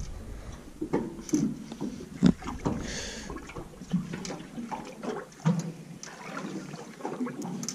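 Water slapping against the hull of a small boat, with scattered knocks and handling noises as a fishing rod is worked. There is a brief hiss about three seconds in.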